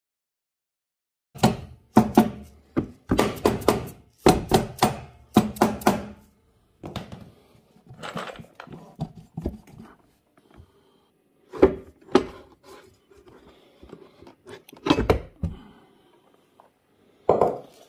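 Knocks and clunks as the CVT (variator) cover of a GOES quad is worked loose and pulled off the engine. Quick clusters of knocks start about a second and a half in, then thin out into a few single heavier clunks.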